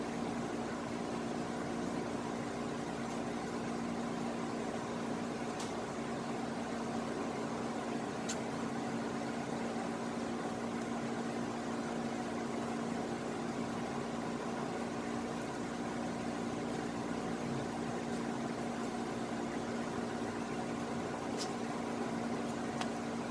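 Electric fan running with a steady hum, and a few faint light clicks.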